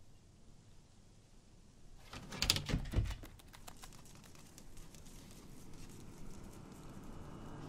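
A dog's feet as it gets down and moves off: a short flurry of light taps and scrapes about two to three seconds in, then faint scattered ticks.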